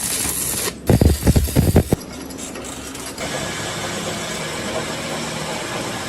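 Workshop machinery: a short hiss, then a quick run of heavy knocks about a second in, then a steady mechanical running noise from about three seconds on.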